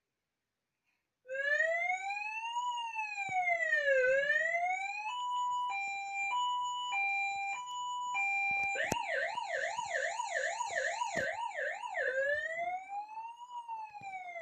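Electronic emergency-vehicle siren, switched on from a handheld remote, starting about a second in and stepping through its tones. First a slow wail rising and falling, then an alternating two-note hi-lo, then a fast yelp of about three sweeps a second, and then the slow wail again.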